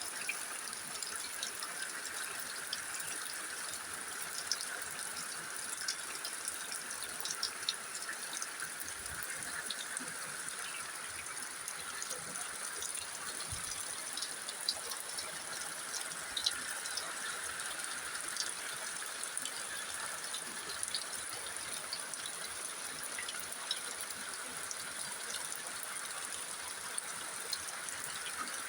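Steady rain falling: an even hiss dotted with many small, scattered drop ticks.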